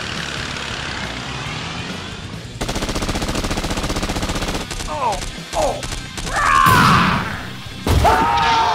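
Sound-effect machine-gun fire from a toy military Humvee's roof gun: a rapid, even stutter of shots lasting about two seconds. Near the end there is a sudden loud blast, an explosion effect.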